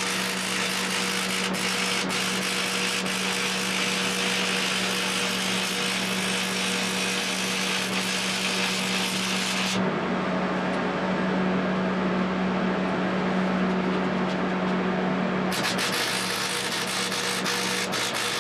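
Stick arc welding: a continuous crackling hiss of the arc over the welder's steady hum. From about ten seconds in, the bright top of the hiss drops away for some five seconds and the hum stands out, then the full crackle returns.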